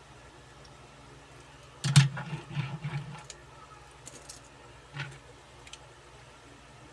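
Diecast toy car set down on a hard surface with a sharp clack and a short metallic rattle about two seconds in, then light clicks and a single knock as a diecast toy truck is picked up and handled.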